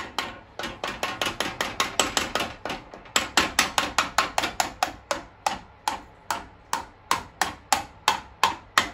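Soft-faced mallet tapping a rocker shaft into a Yamaha XS650's aluminium cam cover. A fast run of light taps slows to about two or three a second after the halfway point. The later taps ring with a metallic ting as the shaft seats home.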